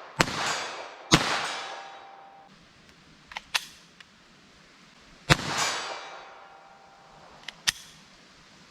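Three .22 LR Remington Golden Bullet rounds fired from a handgun with a 4-inch barrel: two shots about a second apart, then a third about four seconds later. Each sharp crack rings on in a decaying echo for a second or more. Pairs of faint clicks fall between the shots.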